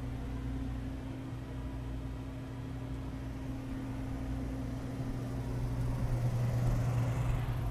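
Steady low hum of the yacht's air conditioning running, growing a little louder near the end.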